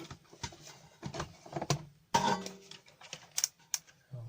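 Scattered clicks and knocks of hands handling a multimeter and the parts of an oil-soaked switching power supply, the loudest about two seconds in.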